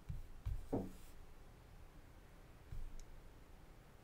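Faint handling sounds of polyester fiberfill stuffing being pushed into a knitted yarn piece by hand, with a few soft low bumps.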